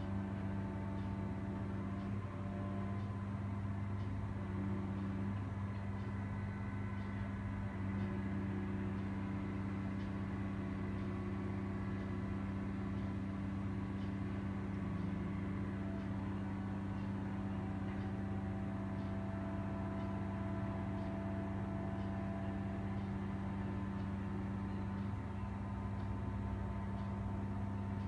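Heavy diesel engines of an excavator and a semi truck idling: a steady, deep, even hum with no revving.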